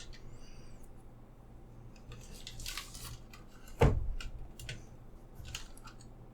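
Hands handling a 1:18 scale diecast model car: soft rustles and small clicks, with one sharp knock about four seconds in.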